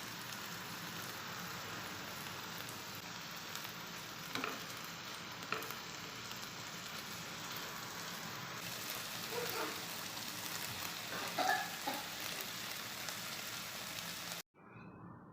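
Food sizzling in hot oil in a pan, a steady hiss, with a few utensil clicks and scrapes against the pan in the middle and toward the end.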